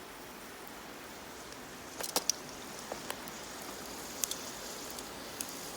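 Wood bonfire burning with a steady hiss and scattered sharp crackles and pops, a quick cluster of them about two seconds in.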